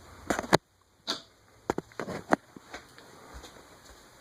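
A scattering of short, sharp knocks and clicks, about half a dozen, of someone moving about and handling objects.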